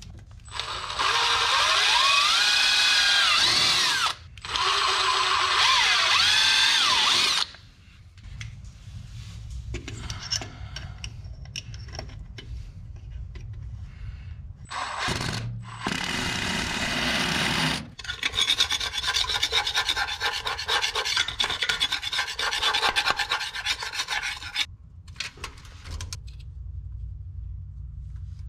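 Cordless impact driver driving screws for a garage door safety-sensor bracket: two runs of about three seconds each with the motor whine rising and falling, then a shorter run and a longer stretch of rapid hammering as the screw seats.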